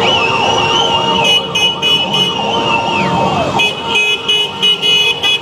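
Street procession noise: a walking crowd of supporters, with a long wavering high whistle-like tone for about three seconds that drops off, and quick high beeping tones repeating over the rest.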